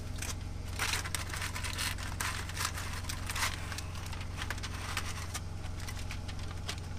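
Aluminum foil crinkling and crackling in irregular bursts as it is peeled off a covered bowl and crumpled by hand, over a steady low hum.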